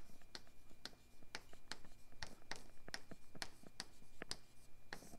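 Chalk writing on a chalkboard: an irregular run of sharp taps and short scrapes as letters are written, several a second, with a brief pause about a second in.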